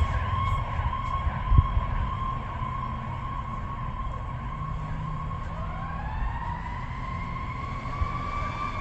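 Fire ladder truck siren holding a steady high tone, with a second siren tone winding up to meet it from about five and a half seconds in, over a low engine rumble.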